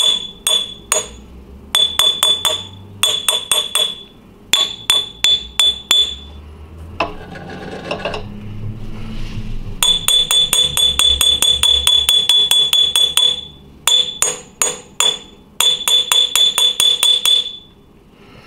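Rapid light taps on the scored glass envelope of a 5R4 rectifier tube, each giving a high glass ping. The taps come in quick runs of several a second with short pauses between, and after a gap midway there is one long run of rapid taps. The glass is being tapped along the score line to crack the envelope off.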